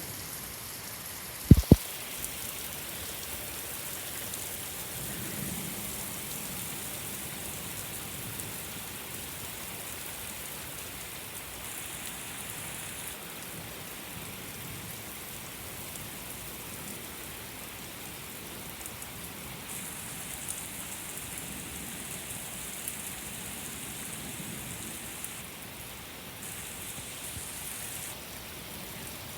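Steady rain falling during a thunderstorm, with low rumbles of thunder. Two loud, sharp thumps come close together about a second and a half in.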